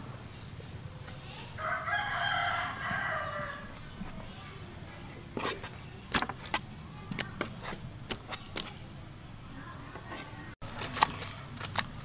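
A rooster crows once, a call of about two seconds, starting a second and a half in; afterwards come scattered sharp clicks and taps.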